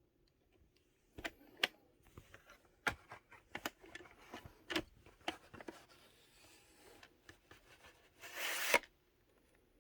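Handling noise: a string of small, irregular clicks and knocks, then a brief scraping rustle near the end.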